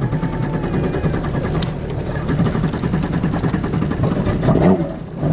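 Stand-up jet ski engine running steadily under way.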